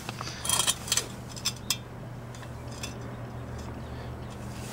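Light metallic clinks and clicks as the metal brake-pedal bracket and brake-light switch parts are handled, a few scattered ones in the first three seconds, over a steady low hum.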